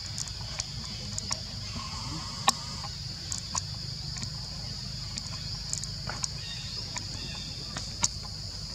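Steady insect chorus, an even high-pitched drone, over a low rumble, with scattered sharp clicks and snaps, the loudest about two and a half seconds in.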